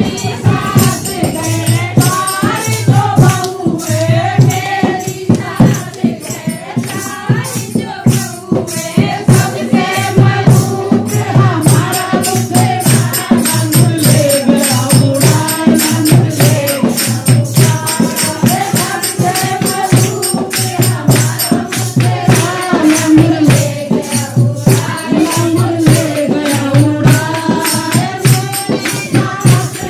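A group of women singing a devotional song together, led into a microphone, over rhythmic hand-clapping and jingling percussion with a steady low beat.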